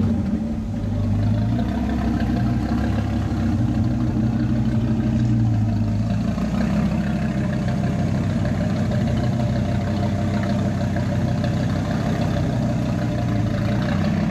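Chevrolet Corvette C6's V8 idling with a deep, steady note just after starting up; the low note shifts about six seconds in.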